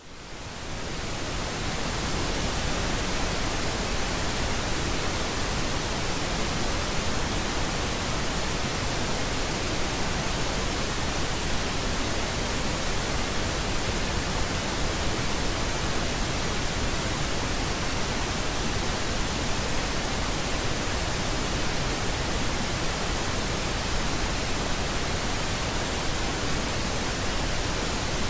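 Pink noise: a steady, even hiss spread across the whole range, fading in over the first couple of seconds and then holding constant.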